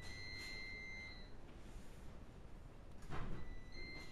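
A steady high-pitched electronic beep tone sounds for about a second at the start and again briefly near the end, over low room noise. A short rustle comes about three seconds in.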